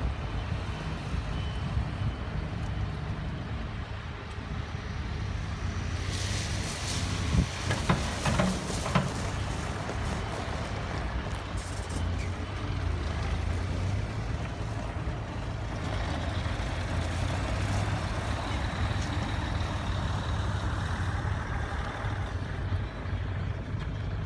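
Diesel engines of heavy construction machinery running steadily with a low rumble. About six to nine seconds in there is a louder spell of hissing with a few sharp knocks.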